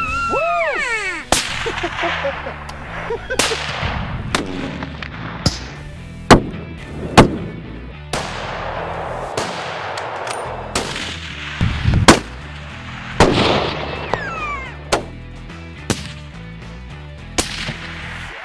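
A series of rifle shots from Fierce Firearms hunting rifles, each a sharp crack with a fading echo, the loudest about six, seven and twelve seconds in, over background music.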